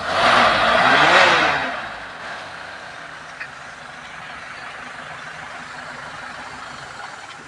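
A motor vehicle goes by close, loud for about the first two seconds with its engine note rising and then falling, followed by a steady hum of road noise.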